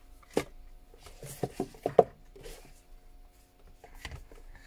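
Small sharp clicks and taps from handling tools and small parts while taking an iPhone 6 apart, several in quick succession with the loudest about two seconds in, over a faint steady hum.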